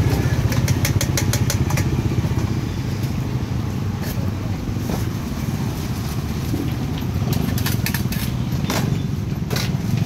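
Quick runs of metal clinking and tapping, a spoon against a stainless steel mixing bowl as salad is tossed and scraped out, over a steady low engine-like rumble.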